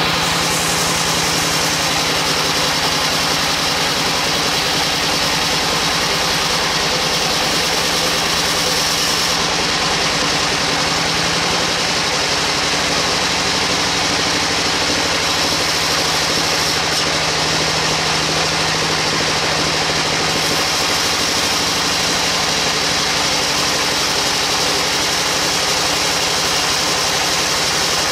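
Band sawmill's vertical blade ripping lengthwise through a large log: a steady, dense sawing noise over the constant hum of the mill's drive.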